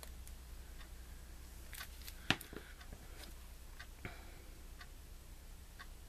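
Faint, scattered light clicks and ticks from fingers handling small pieces of paper cardstock, with one sharper click a little over two seconds in.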